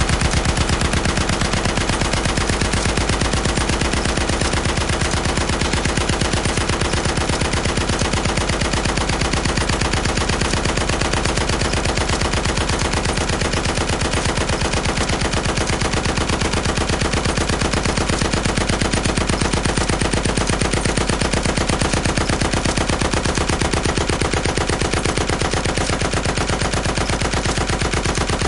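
Heavy machine gun firing in one long unbroken burst of rapid, evenly spaced automatic shots.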